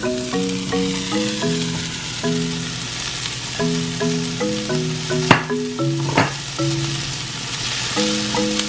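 Diced onions, red bell peppers and mushrooms sizzling in a wok as they are stirred, with two sharp clicks about five and six seconds in. Background music with a melody of short notes plays over it throughout.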